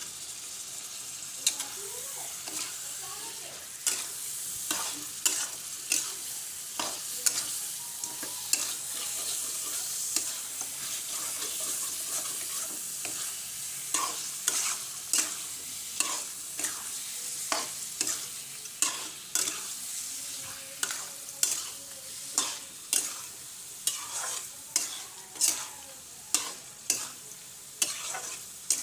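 Mutton curry frying in a pan with a steady sizzle, while a spatula scrapes and knocks against the pan as it is stirred. The stirring strokes become regular in the second half, about one and a half a second.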